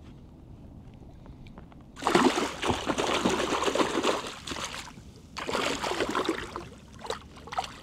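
Water splashing and streaming off a landing net as it is lifted out of the water with a pike thrashing in it, in two loud bursts, one about two seconds in and a shorter one a little after the middle.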